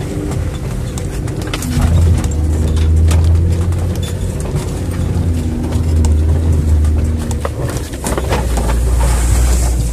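Jeep Wrangler engine running under load, heard from inside the cab, its note rising and falling with the throttle as it crawls a rough snowy forest track. Knocks and rattles from the bumpy ride come through, with a cluster near the end as branches scrape across the windshield.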